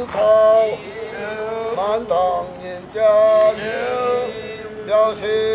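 A man chanting ritual liturgy in drawn-out sung phrases, holding long notes with short breaks between phrases.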